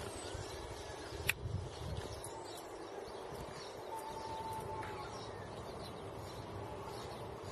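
Outdoor dawn ambience: faint, scattered bird chirps over a steady background hum, with one sharp click about a second in.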